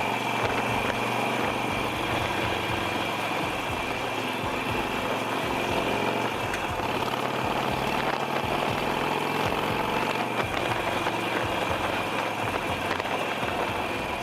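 Harley-Davidson motorcycle's V-twin engine running steadily.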